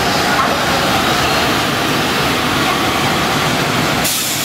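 JR Freight EF210 electric locomotive at the head of a freight train passing very slowly: a steady running noise of the locomotive and its wheels on the rails, which changes abruptly about four seconds in.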